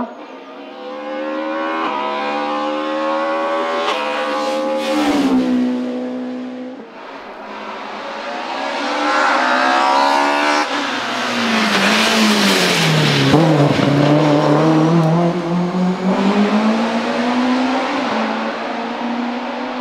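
BMW E30 M3 hillclimb race car engine accelerating hard, revving up through the gears with sharp drops in pitch at each shift. It is loudest and falls in pitch about two-thirds through as the car goes by, then pulls away climbing again.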